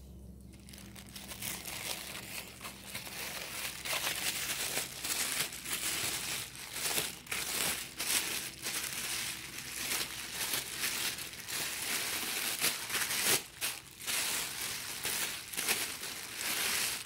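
Clear plastic wrapping crinkling and rustling continuously as plastic-wrapped metal stand parts are handled and lifted from a foam packing tray. It starts about half a second in.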